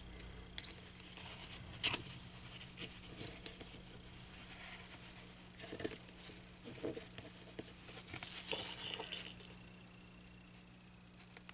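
Fabric rustling and crinkling as it is handled and folded around a styrofoam board, with scattered small taps and clicks. It is busiest about eight to nine seconds in, then goes quiet.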